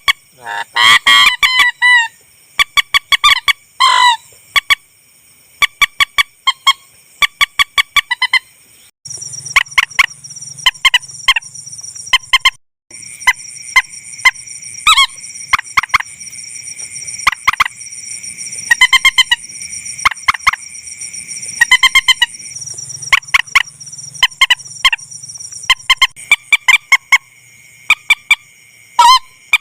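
Bird-lure recording of rail and swamphen (mandar) calls: a rapid run of short, repeated clicking calls broken by louder honking calls. A steady high-pitched tone runs behind them and cuts out briefly twice.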